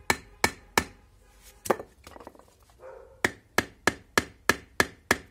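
Sharp wooden knocks of repeated blows struck on a Ganzo 7453 folding knife to drive its blade into wood, as in batoning: about three a second, with a pause of about a second and a half midway.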